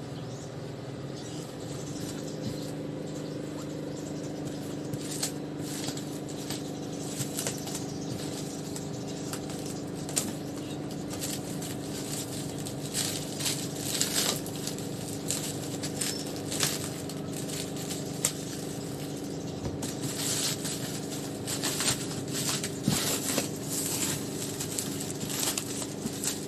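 Groceries being unpacked by hand: irregular rustling and clicking of plastic bags and packaging, busier in the second half, over a steady low hum.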